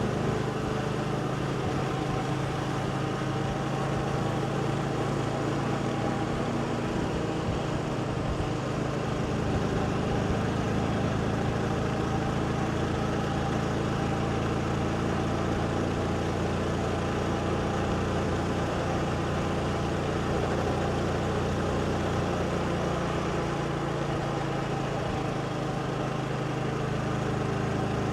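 Motorbike engine running steadily while riding, its pitch rising and falling a little with the throttle.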